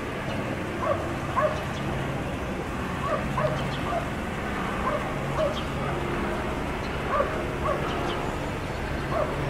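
Police K9 dog giving short, high yelping cries over and over, about one or two a second, over a steady low hum.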